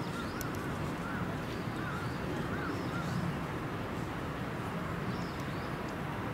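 Steady outdoor background murmur with a run of short, faint bird chirps, several a second, mostly in the first half.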